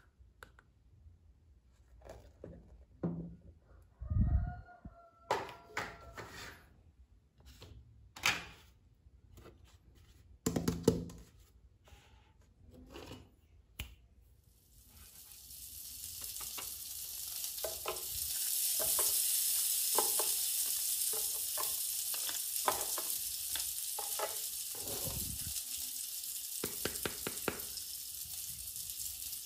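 Small plastic toy pieces clicking and knocking as they are picked up and set down. About halfway through, a toy barbecue grill's steady sizzling hiss like frying starts and keeps going, with more plastic clicks over it as toy skewers are placed on the grill.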